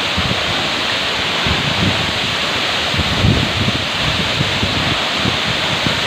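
Tall waterfall pouring into its plunge pool: a loud, steady rush of falling water. Irregular low gusts of wind buffet the microphone.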